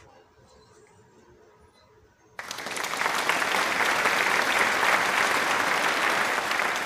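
Recorded crowd applause that cuts in abruptly about two and a half seconds in and stays loud and steady.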